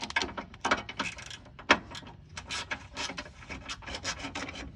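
Socket ratchet and hand tools clicking and knocking on metal while working the fog-light mounting bolts: a quick, irregular run of sharp clicks.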